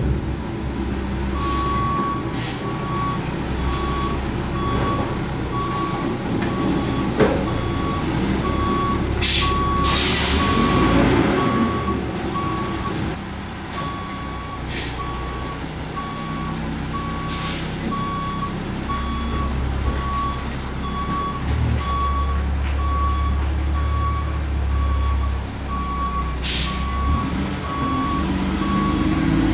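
Mack MR front-load garbage truck reversing: its back-up alarm beeps steadily over the diesel engine's low running rumble. Several sharp bursts of air from the air brakes cut in, the longest about ten seconds in.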